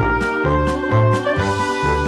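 Background music: an upbeat tune with brass-like melody over a steady beat.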